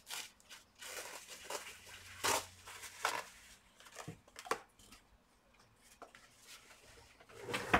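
Scattered rustles, taps and clicks of small items being handled and rummaged through, with a louder rustle near the end.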